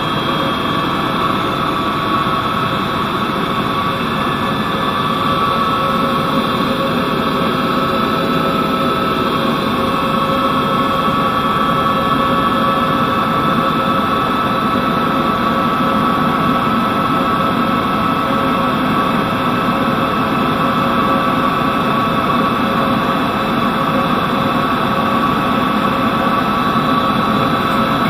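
Tour helicopter in flight: a steady engine and rotor drone with a high, even whine on top.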